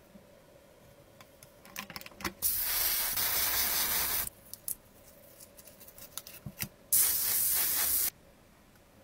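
Spray paint hissing from a nozzle in two bursts, the first about two seconds long and the second about one second, coating small masked model-car parts. Light clicks and taps of handling come between the bursts.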